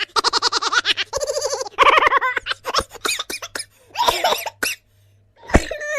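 A quick run of short meme sound-effect clips: pulsing laughter-like voice bursts, a rattle of clicks in the middle, and a hard thud near the end followed by a falling tone.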